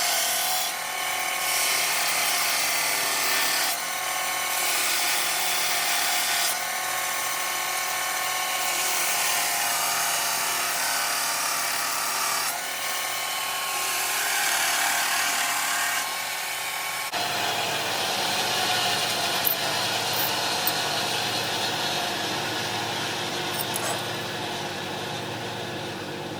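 Power grinder grinding the steel of a forged spur, a steady grinding whine that shifts as the work is pressed. About two-thirds of the way through, the sound changes character and gains a lower hum.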